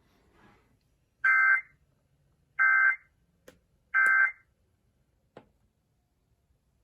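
NOAA Weather Radio SAME end-of-message data bursts: three short, identical, loud buzzy warbles of digital tones about a second and a half apart, closing the weekly EAS test. A couple of faint clicks come between and after them.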